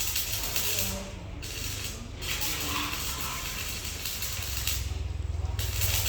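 Electric arc welding: a crackling hiss over a low hum, which stops briefly three times, about a second in, about two seconds in and near the end, as the arc is broken and struck again.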